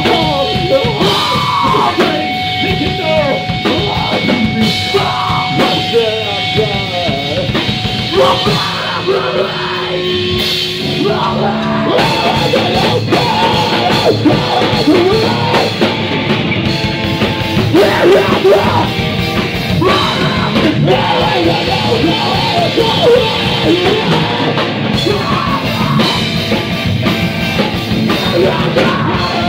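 A rock band playing live and loud: electric guitar, drum kit and yelled, sung vocals. The playing shifts to a denser section about twelve seconds in.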